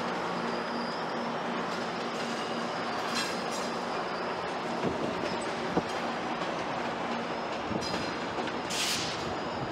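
GO Transit MP40PH-3C diesel locomotive pulling a commuter train away over the station approach tracks: a steady engine drone that fades about seven seconds in, wheels clicking over rail joints and switches, and brief high wheel squeals about three seconds in and, loudest, near the end.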